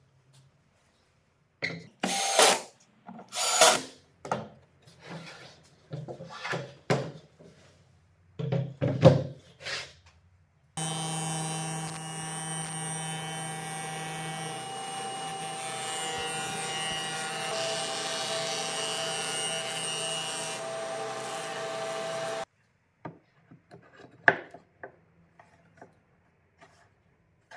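Wooden jig parts handled, slid and knocked together on a table saw for about ten seconds. Then a power tool's electric motor runs steadily for about twelve seconds, stopping abruptly, followed by a few light wood knocks.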